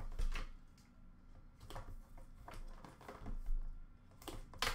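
A cardboard trading-card box being handled: scattered light taps, scrapes and small knocks, with one sharp click near the end that is the loudest sound.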